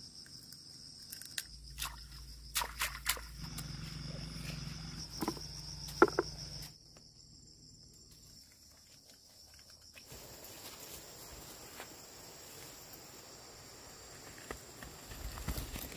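Steady high-pitched insect trilling, with scattered clicks and rustles. Near the end come footsteps through grass and brush.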